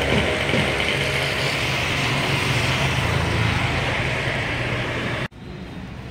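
An engine running steadily, with a low rumble under a strong hiss, like a motor vehicle close by. It cuts off abruptly about five seconds in.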